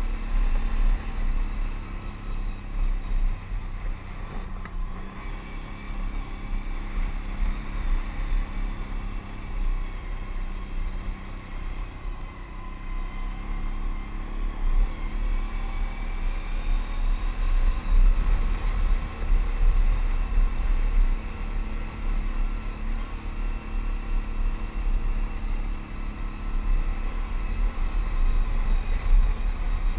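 Can-Am Outlander ATV running at riding speed on a gravel trail. The engine note rises and falls a little with the throttle over a heavy, unsteady low rumble.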